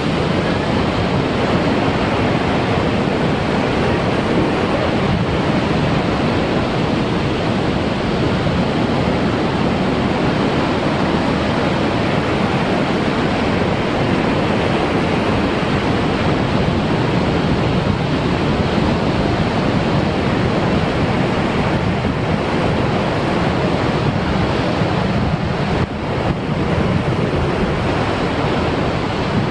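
Ocean surf breaking on a rocky shore and washing into a tide pool: a loud, steady rush of whitewater.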